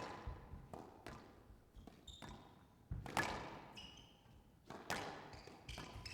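Squash rally: the ball is struck hard by rackets and slaps off the court walls in a run of sharp cracks, each with a short echo, the loudest about three seconds in. Players' shoes squeak briefly on the court floor.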